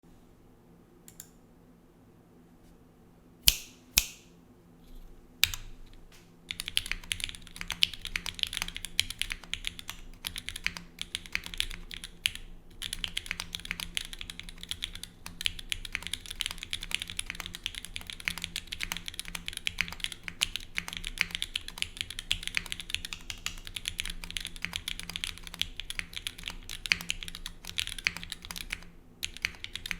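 Bias TKL mechanical keyboard with lubed and filmed Gateron Black KS3 linear switches, on a grommet-mounted aluminium plate with no foam and GMK keycaps, being typed on. A few single keystrokes come first, then steady fast typing starts about six seconds in, with a brief pause near thirteen seconds and another near the end.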